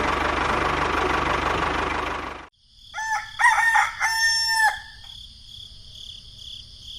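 A small engine running noisily stops abruptly about two and a half seconds in. A second later a rooster crows once, a call of several short parts ending in a longer held note, over a steady high whine.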